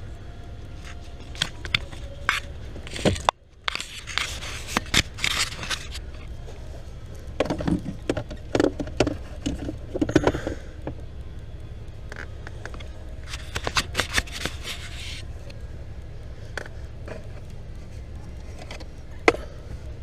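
Hands working on plastic car parts: irregular scraping and rustling with scattered sharp clicks, in three bursts, and one sharp click near the end, over a steady low hum.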